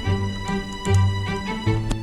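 Background music: instrumental notes with a bass line changing about every half second.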